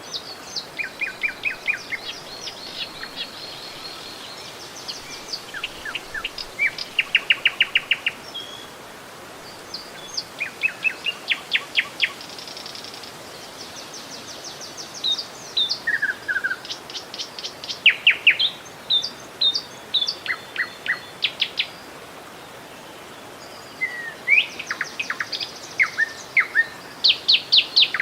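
Songbirds singing and chirping throughout, in fast trills and short repeated calls, over a faint steady rush of running river water.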